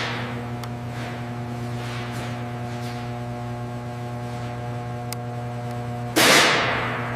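A steady low electrical-sounding hum with several steady tones above it and faint, repeated falling swishes. About six seconds in, a sudden loud hissing burst fades away.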